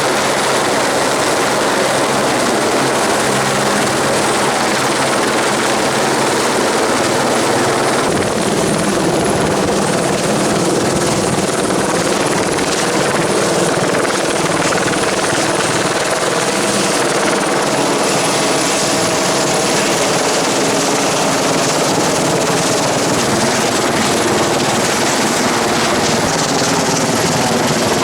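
Helicopter running steadily and loudly, a continuous mix of engine and rotor noise. A low hum under it drops out about eight seconds in.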